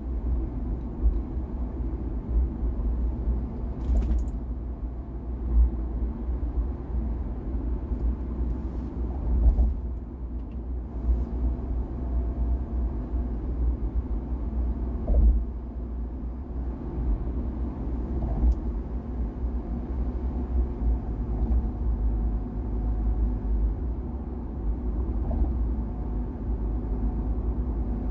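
Car driving along: a steady low rumble of tyre and engine noise, with a few brief clicks and bumps.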